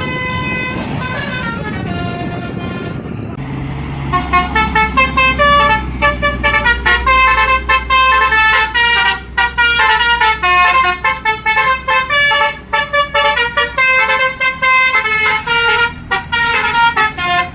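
A bus's Basuri telolet horn, a set of multi-tone musical horns, playing a tune: a few longer notes at first, then from about four seconds in a fast run of short, quickly changing notes. The bus's engine runs underneath as a low hum.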